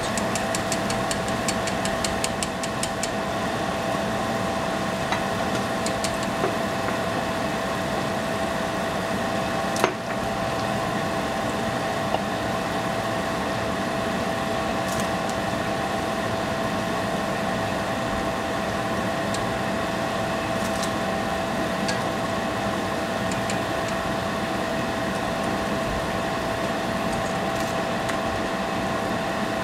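Steady mechanical fan hum holding a constant pitch, with a run of rapid faint ticks in the first few seconds and one sharp click about ten seconds in.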